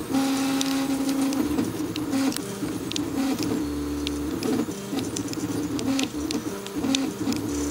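3D printer's stepper motors whining in short moves, the pitch jumping from one step to the next as the axes change speed and direction, with scattered small clicks.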